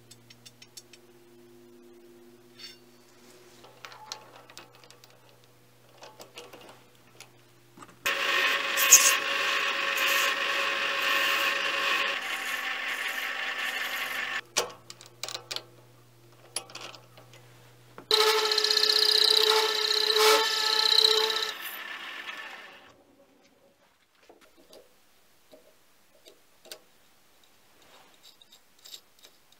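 Needle file rasping against a brass bushing spinning in a mini lathe's chuck, in two spells of a few seconds each, with ringing tones over the rough filing noise. A low hum runs before and between the spells, and a few small clicks of handling follow.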